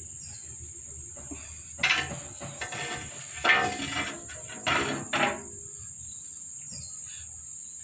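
Steady, high-pitched insect chirring throughout, broken by several short, louder sounds between about two and five and a half seconds in, the last one falling in pitch.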